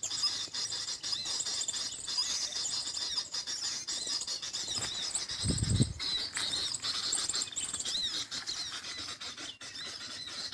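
Small songbirds' high-pitched chirping and trilling, rapid and continuous, with a single low thump about halfway through.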